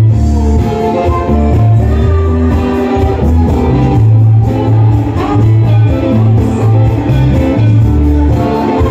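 Live band playing amplified music: a strong bass guitar line, electric guitar, keyboards and drums, with women singing.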